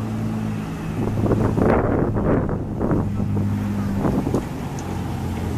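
M8 Greyhound armored car's Hercules six-cylinder gasoline engine running steadily as the vehicle drives across grass, with wind buffeting the microphone in gusts between about a second and a half and three and a half seconds in.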